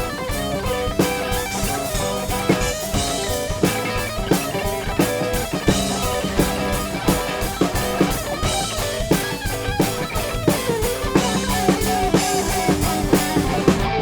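Band music: guitars over a drum kit and bass, with a steady beat.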